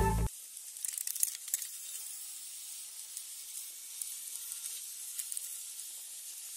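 Steady high hiss of road and air noise from riding in a moving vehicle, with a few faint clicks about a second in. A loud burst of music cuts off just after the start.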